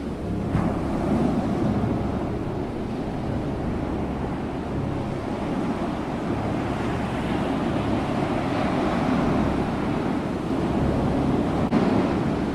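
Ocean surf: a steady rushing wash of waves that swells and eases every few seconds, with a brief click near the end.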